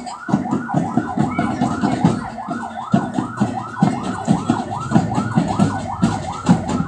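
Electronic siren yelping, a fast rise-and-fall wail repeating about three to four times a second, over a run of low beats.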